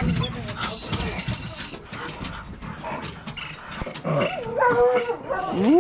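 Hunting dogs (beagles and hounds) crowded on a truck bed, whining and yelping, with one long whine rising in pitch near the end. A bird trills high and fast in the first two seconds, over scattered clinks and knocks.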